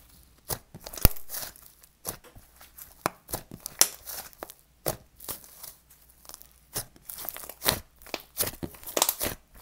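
Soft, fluffy butter slime squeezed, stretched and pressed flat by hand, giving irregular sizzly crackles, sticky tearing sounds and small air pops.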